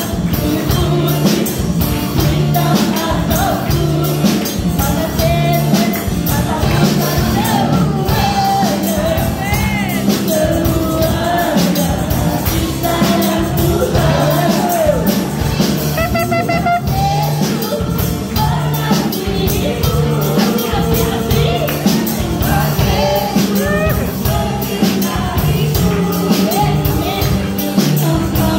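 Singers with microphones performing a worship song, a woman's voice leading with a man and a second woman joining in, over backing music with a steady beat and a repeating bass line.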